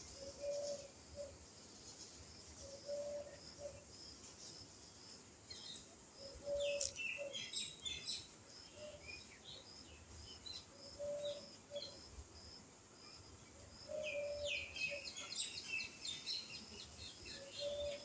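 Dawn birdsong: a dove cooing a short low phrase every few seconds, with small birds chirping and twittering over it in two busy spells, and a faint high note repeating steadily throughout.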